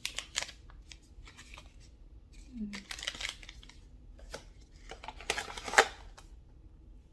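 Packaging being handled: paper and plastic rustling and crinkling in several short bursts, with a sharper crackle near the end.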